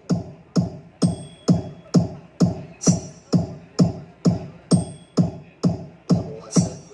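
Electronic dance remix played loud through a competition mini sound system, a heavy kick drum thudding steadily about twice a second with high percussion ticks over it.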